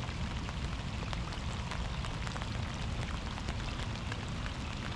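Water splashing and lapping against a moving kayak's hull: a steady hiss dotted with many small ticks and drips, over a low rumble.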